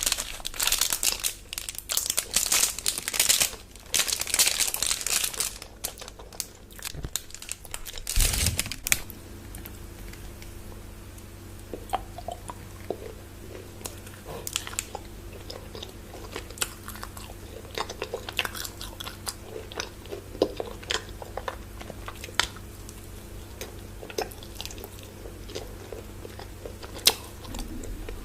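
Close-miked eating of a crunchy chocolate bar: loud bites and crunching for the first nine seconds or so, then quieter chewing with scattered small mouth clicks. A faint steady hum runs underneath.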